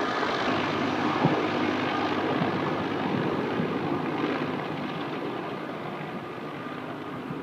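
Heavy tanker helicopter, a Sikorsky S-64 Skycrane, flying away: a steady rotor and turbine drone that slowly fades.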